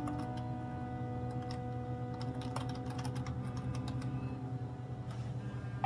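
Fingers typing on a computer keyboard: quick, irregular key clicks.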